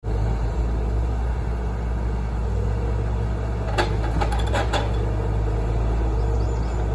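A 2003 Fabtek forwarder's diesel engine runs steadily under load while its hydraulic crane works. A little under four seconds in comes a quick run of four or five knocks as the grapple sets a log down on the load.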